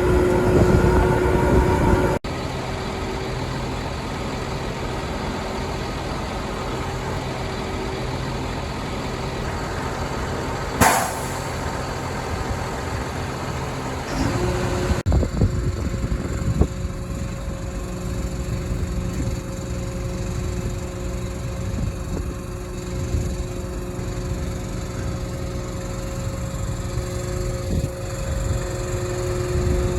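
Large diesel farm machinery running steadily, with an air hiss about 11 seconds in. The engine sound changes abruptly twice.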